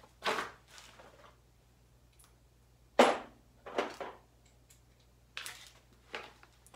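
A handful of short scrapes and knocks from tools or parts being handled, the loudest about three seconds in, with quiet between them.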